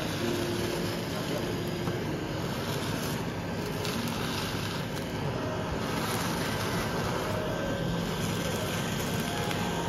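Handheld butane kitchen blowtorch burning with a steady hiss as its flame sears the fish on nigiri sushi.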